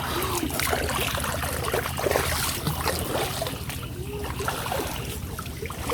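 Pond water splashing and trickling: a run of small, irregular splashes and drips.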